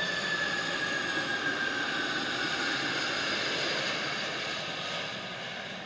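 Boeing 747 jet engines as the airliner passes low overhead on final approach to land: a steady rush of jet noise with high whining tones, fading gradually toward the end.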